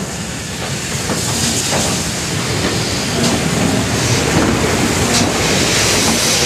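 GWR 'Dukedog' 4-4-0 steam locomotive No. 9017 running tender-first past with its carriages, wheels clicking over the rail joints and steam hissing, getting louder as it comes alongside.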